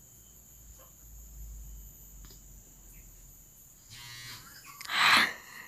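Steady high insect drone with a few faint knocks, a low buzz about four seconds in, then a short loud rush of noise near the end.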